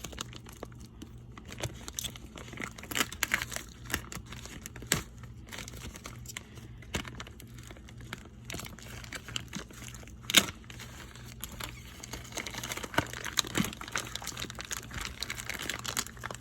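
Packaging crinkling and rustling, with scattered clicks and knocks, as frozen corn on the cob is taken out of it. There is a sharper knock about ten seconds in and denser rustling near the end.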